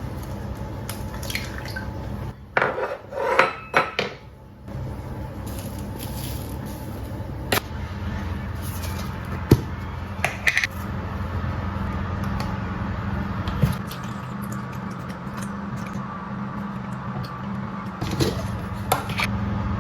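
Kitchen utensils and dishes clinking and knocking in irregular clatters, busiest early on and again near the end, over a steady low hum.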